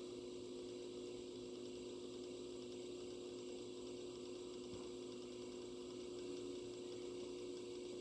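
Gaggia Titanium brew-unit drive motor running slowly during the machine's self-test, a steady hum. Its power supply is not giving it enough power to turn properly, the fault behind the machine's "brew unit blocked" message.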